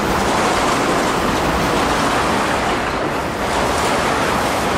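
Autorack freight cars of a CSX manifest train rolling past close by: a steady, even rush of steel wheels on rail.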